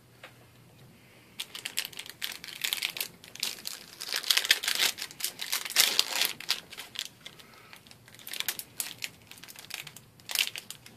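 Foil trading-card booster pack wrapper crinkling and tearing as it is ripped open by hand, in irregular crackly bursts starting about a second and a half in.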